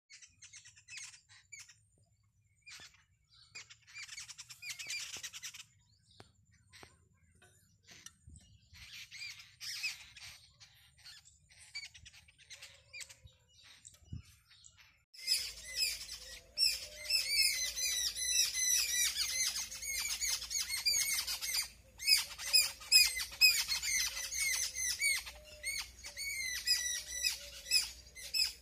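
Many birds chirping and squawking: scattered and faint at first, then a dense, loud chorus of short repeated chirps from about halfway through, over a low steady hum.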